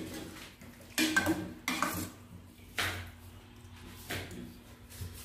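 Metal ladle clinking and scraping against a stainless-steel pot of soup as it is stirred, with four sharp clinks spread through it.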